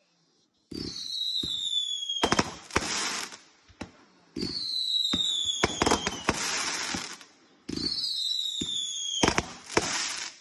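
A multi-shot firework cake fires three shots about three and a half seconds apart. Each is a low launch thump with a whistle falling in pitch and a hiss, followed about a second and a half later by sharp bangs and crackle as the shell bursts.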